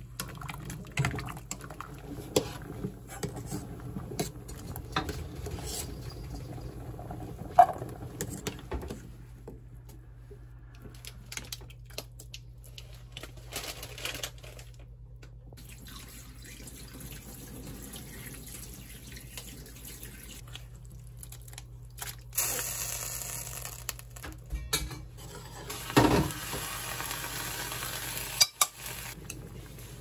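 Kitchen work sounds. A wooden spoon stirs cubes of taro in a steel pot, clicking and knocking. Later comes water running at a stainless steel sink, with clinks of a metal strainer and bowl.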